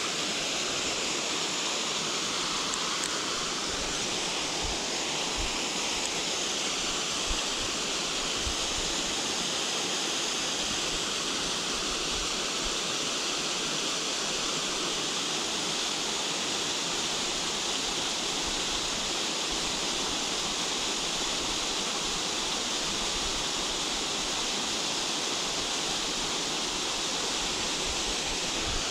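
Small waterfall cascading into a pool of a mountain torrent: a steady, unbroken rush of falling water.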